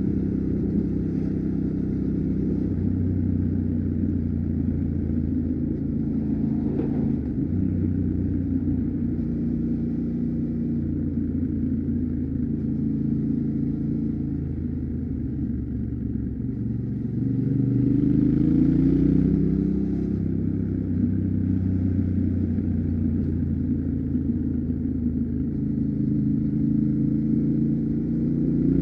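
Yamaha Ténéré 700's 689 cc parallel-twin engine, on its stock exhaust, running steadily while the bike is ridden. It eases off briefly, then pulls with a rising pitch about two-thirds of the way in, and rises again near the end.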